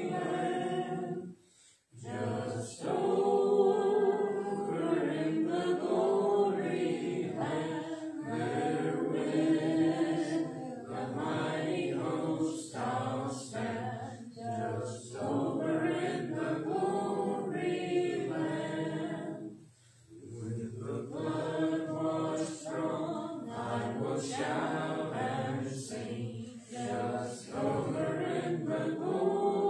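Congregation singing a hymn a cappella, with no instruments. The singing breaks off briefly twice, about two seconds in and about twenty seconds in, between lines.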